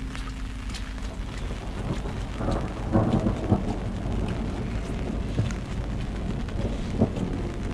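Heavy rain falling steadily, with scattered drop ticks, and a low rumble of thunder that swells about two and a half seconds in and dies away a second later.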